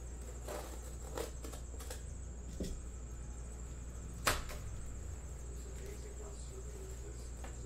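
Utility knife slitting the packing tape on a cardboard shipping case and the flap being worked open: scattered scrapes and light clicks, with one sharp click about four seconds in. A steady low hum and a thin high whine run underneath.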